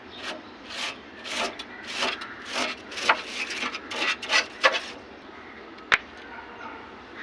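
Quick rubbing or scraping strokes, about two or three a second for some five seconds, then a single sharp click about six seconds in.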